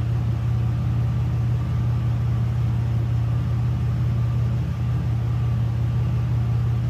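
Chevrolet Uplander minivan engine idling: a steady low hum. The idle is smooth and the valve train is muffled but not completely gone, which the owners put down to an engine oil additive added a few minutes earlier.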